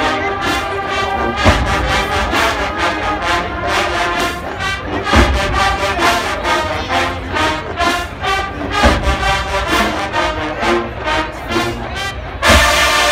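College marching band playing loudly, brass section carrying the tune over bass drum hits. About twelve seconds in the sound gets suddenly louder and brighter.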